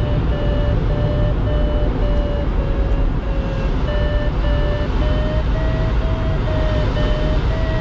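Glider variometer beeping in a steady run of short beeps, its pitch creeping up a little about halfway through: the audio signal of weak lift as the glider meets a thermal. It sounds over the steady rush of air around the cockpit.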